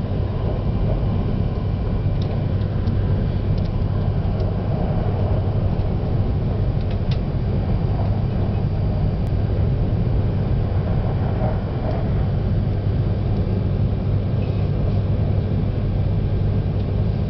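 Steady running rumble of a Tsubasa shinkansen train, heard inside the passenger cabin as it travels, with a few faint clicks.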